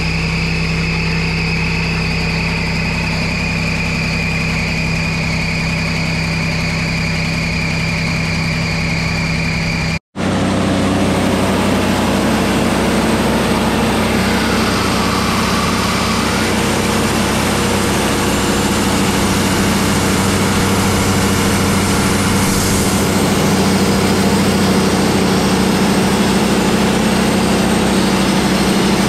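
Wood-Mizer portable sawmill's engine running steadily, with a steady high whine over it for the first ten seconds or so. The sound drops out for an instant about ten seconds in, then the engine runs on steadily.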